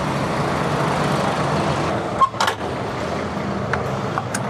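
A semi-truck's diesel engine idling steadily, heard from outside the cab. A knock comes a little over two seconds in, and a few light clicks near the end as the trailer's rear door is handled.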